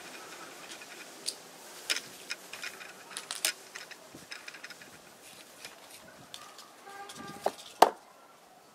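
Light plastic clicks and taps from a building-block toy helicopter being handled, its rotor flicked round by finger, with two sharper clicks near the end as the model is picked up.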